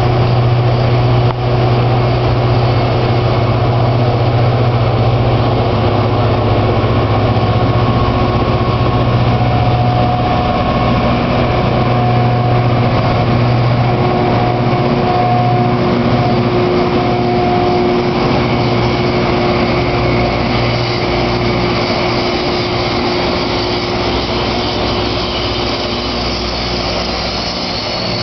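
Rail grinder train passing at close range: its diesel engines run with a steady deep hum while its grinding stones grind continuously against the rail, giving a harsh hiss over the hum.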